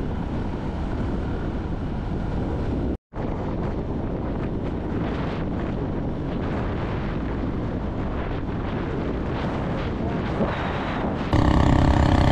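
Steady rushing wind noise on the microphone. It drops out briefly about three seconds in and gets louder about a second before the end.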